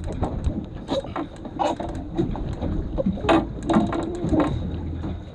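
Boat in open-ocean swell: water slapping against the hull, with irregular knocks and clicks.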